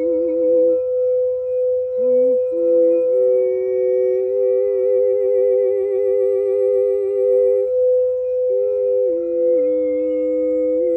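A singing bowl drones on one steady tone while a voice hums over it, holding wavering notes that step up and down in pitch, with short breaks about a second in and again near eight seconds.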